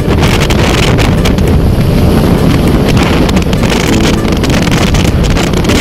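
Heavy wind buffeting on the microphone of a camera riding on a moving motorcycle, with the bike's running and road noise underneath.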